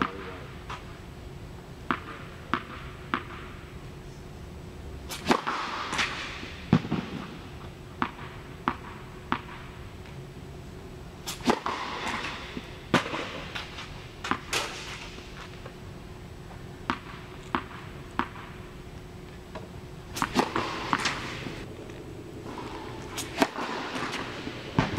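Tennis ball sharply struck by a racket and bouncing on an indoor court, sharp pops every second or two, some in quick pairs, echoing in the tennis hall over a steady hum.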